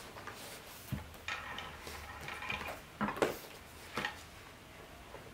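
Black leather-look backpack being handled on a wooden table: its stiff flap and body rustling and rubbing, with four short knocks and clicks about one, three and four seconds in.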